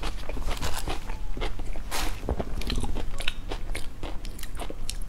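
A person chewing crunchy food with the mouth closed, close to a clip-on microphone: many irregular, crisp crunches and clicks.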